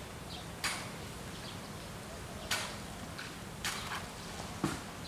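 Outdoor ambience: a steady low hum with faint, high bird chirps, broken by four short, sharp clicks or snaps about a second apart.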